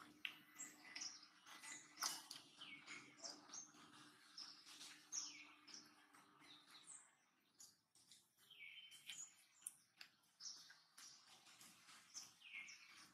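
Faint, scattered chirping of small birds, many short high calls coming every half second or so.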